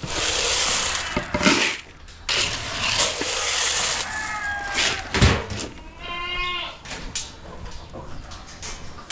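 Goats bleating: a short wavering call about four seconds in and a stronger, longer one around six seconds. Bursts of rustling noise come before them.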